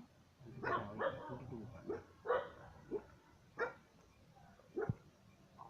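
A dog barking, about half a dozen short barks at irregular intervals.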